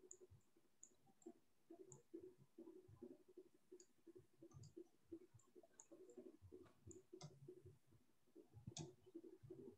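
Faint, irregular clicks from a computer mouse and keyboard as values are typed into a program, with a sharper click near the end.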